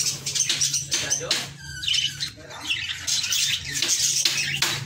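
Budgerigars chattering, a quick run of high chirps, squawks and warbling with many short sharp notes.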